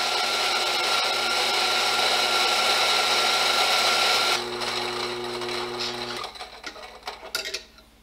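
Electric espresso grinder grinding coffee beans, a loud steady whirr. Just over four seconds in, the grinding noise drops away and the motor hums on for about two seconds before it stops, followed by a few light taps.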